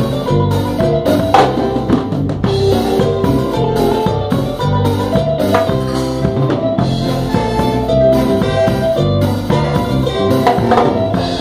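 Live band playing music, with a drum kit and percussion keeping a steady beat under held bass and melody notes.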